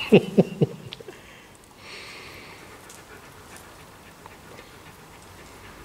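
An animal's short yelps, about four in quick succession, each falling in pitch, within the first second, then only a faint steady hiss.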